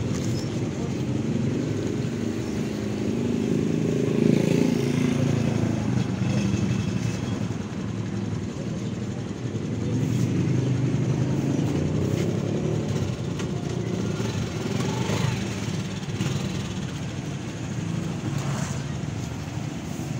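Street traffic: motor vehicles running and passing, a steady low rumble that swells now and then.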